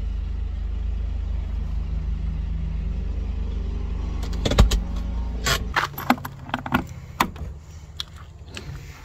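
Camper van's engine running, a steady low rumble heard from inside the cabin, with a loud thump a little over four seconds in. The engine is switched off at about six seconds, and a series of sharp clicks and knocks follows.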